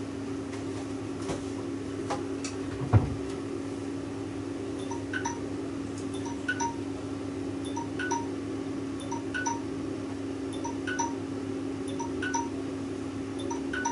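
An alarm tone plays a repeating chime melody of short high notes, starting about five seconds in. Under it runs the steady hum of the halogen oven's fan. A single sharp knock comes about three seconds in.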